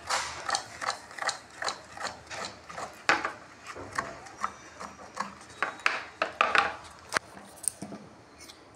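Hand-operated coconut grater working in quick repeated strokes: a rasping, ratcheting mechanical sound about two or three times a second.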